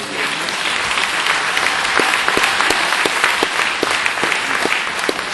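Audience applauding, a dense patter of many hands with sharp single claps standing out. It swells over about the first second, then holds steady.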